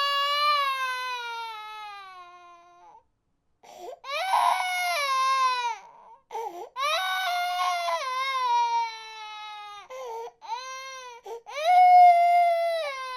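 Infant crying: a string of long wails, each sliding down in pitch, broken by short breaths between them.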